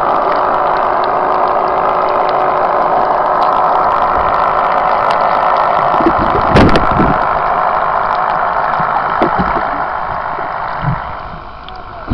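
A boat's engine running, heard underwater as a steady hum, with a few knocks about six and a half seconds in. The hum fades about a second before the end.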